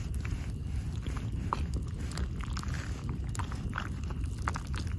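Carved wooden spoon stirring and scraping in a metal cup of thick potato soup: scattered small clicks and scrapes over a steady low rumble.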